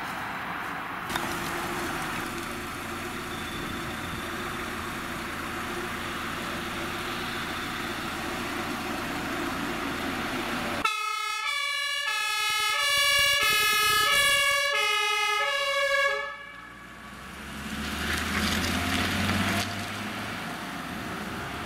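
Fire engine's two-tone siren (the German "tatütata" horn) sounding its alternating high and low notes for about five seconds in the middle, then cutting off abruptly. Before it, steady road and engine noise of a vehicle driving off; after it, the low running of a truck engine.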